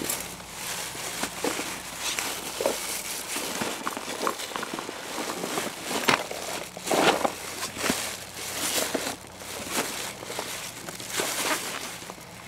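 A gear bag being rummaged through by hand: irregular rustling and crinkling with scattered light clicks and knocks, a little louder around six and seven seconds in.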